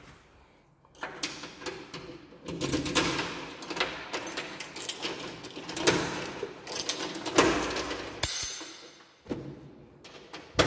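Keys rattling and a key being worked in an apartment door lock: a dense run of clicks and rattles over rustling, easing off about eight seconds in, with a few more clicks near the end.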